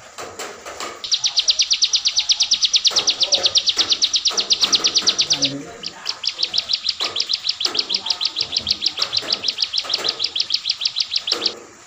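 A small caged songbird, a ciblek, singing two long, rapid trills of high, evenly repeated notes, about ten a second, with a short break between them. Faint knocks and clicks sound underneath.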